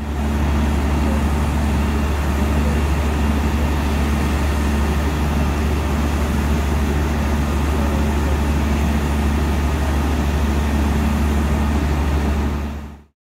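Fire engine's motor running steadily while it drives the water pump for the aerial ladder's stream: a deep, constant drone under a steady hiss.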